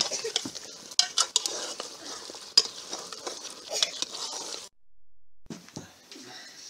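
A metal spoon stirring curry in an aluminium pressure-cooker pot, scraping and clinking sharply against the sides over a steady sizzle of frying. The sound cuts out briefly about two-thirds of the way through, and faint, sparse clicks follow.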